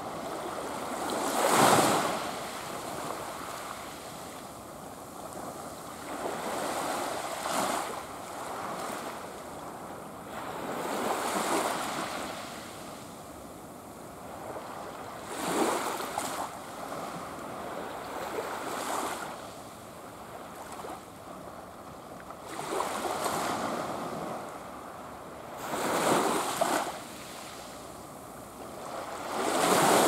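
Small waves breaking and washing up a sandy beach, a rushing surge coming in about every four seconds.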